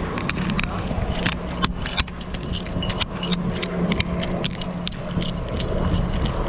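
A steady low hum of idling bus engines under a run of irregular sharp clicks and rattles from handling close to the chest-mounted camera as its wearer walks.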